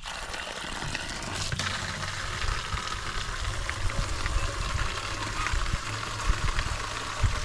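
Water pouring steadily into a 5-gallon poultry waterer as it is filled, starting abruptly, with a low rumble underneath.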